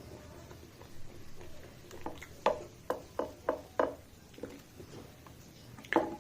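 Close-miked eating sounds: chewing and wet mouth smacks, with a quick run of about five smacks midway and one louder smack near the end.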